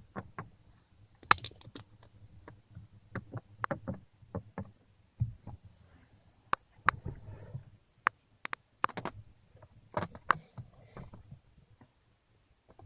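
Short, irregular creaks and clicks from the inner window-glass seal of a pre-facelift Hyundai Solaris driver's door rubbing against the door trim panel. These are the squeaks left after anti-squeak tape went under the seal; the owner puts them down to the seal rubbing on the door card where it is not yet taped.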